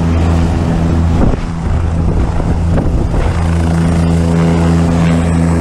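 Helicopter in flight heard from on board: a steady, loud drone of rotor and turbine with a deep, even hum.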